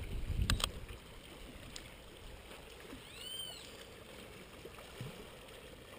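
Faint shoreline ambience: a low steady rush of wind and lapping water. Two quick clicks come about half a second in, and a single short chirp that rises and falls comes about halfway through.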